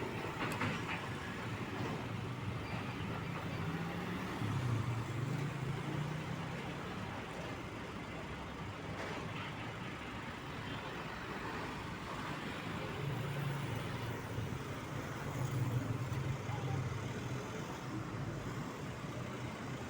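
Road traffic with heavy truck diesel engines running; the low engine note swells about four seconds in and again around thirteen seconds, as a truck pulls or passes close by.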